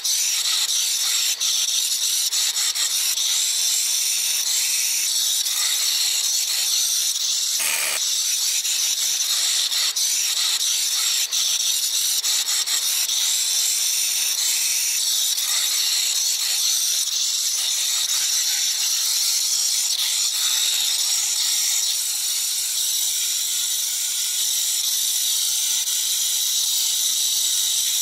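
Angle grinder with a sanding disc running steadily on the surface of a wooden slab, a high-pitched whine and hiss.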